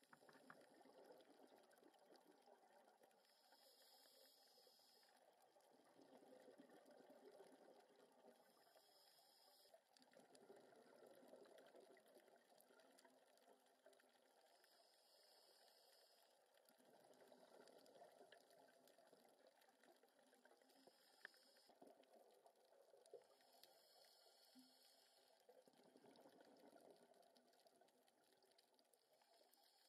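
Faint scuba breathing through a regulator, heard underwater: a hiss on each breath alternating with a rush of exhaled bubbles, in a slow cycle of about one breath every five or six seconds.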